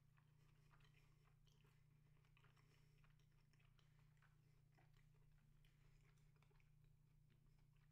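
Near silence: faint chewing of a chocolate bar, small mouth clicks over a low steady hum.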